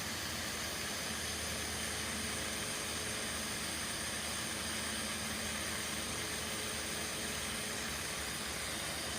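Ronson 8008 butane torch burning steadily with a soldering tip attached, giving an even, unbroken hiss as it heats the tip red hot.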